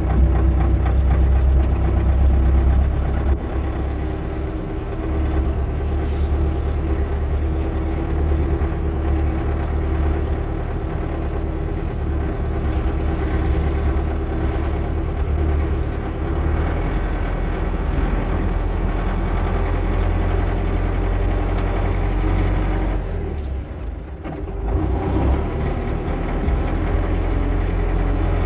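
Tractor engine running steadily with a deep rumble. About 23 seconds in it briefly drops off, then picks up again.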